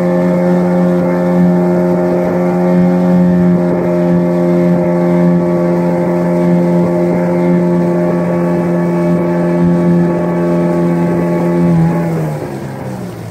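Outboard motor of a small open boat running steadily at cruising speed. Near the end its pitch falls and it quiets as the motor slows down.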